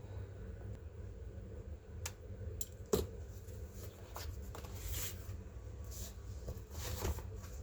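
Hands working on a laptop: scattered small clicks, taps and rubbing, over a low steady hum.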